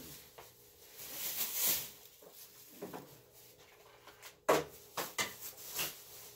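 Rustling, then three sharp knocks and clatters from about four and a half seconds in, the first the loudest, as things are handled and knocked against close by.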